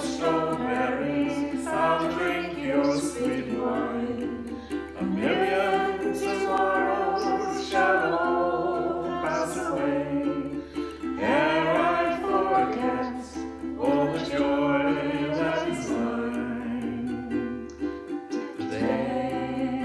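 Ukulele strumming chords with a voice singing along.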